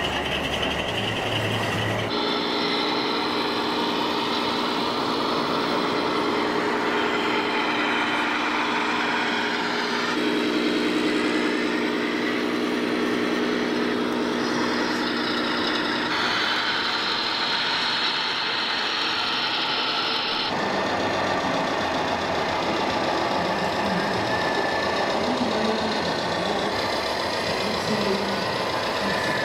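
Radio-controlled scale model trucks and cars running, with a steady electric-drive whine and droning engine sounds from their sound modules over hall background noise. The sound changes abruptly several times as the picture cuts between models.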